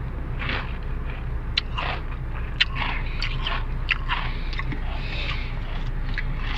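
Mister Potato sweet potato crisps dipped in McFlurry ice cream being chewed with crackly crunching, over a steady low hum.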